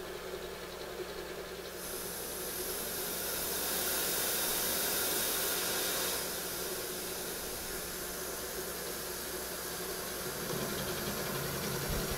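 Vertical milling machine's spindle running steadily while a 3/8-inch end mill plunges a groove, with a mist-coolant nozzle hissing, loudest from about two to six seconds in. The spindle is in the wrong gear range; the machinist notes right afterwards that it didn't sound quite right.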